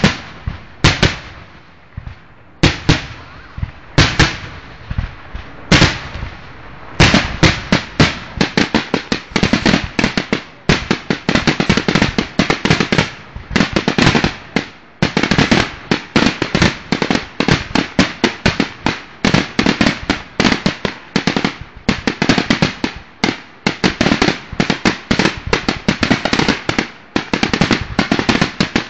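Aerial fireworks shells bursting: a few separate bangs about a second apart, then from about seven seconds in a dense, rapid barrage of bangs.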